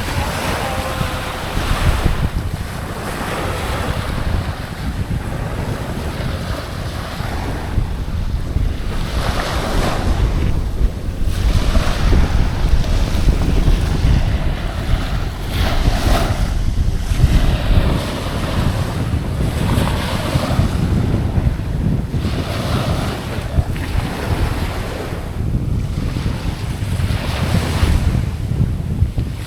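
Ocean waves washing onto the shore, with surges of hiss every few seconds, over a steady low rumble of wind buffeting the microphone.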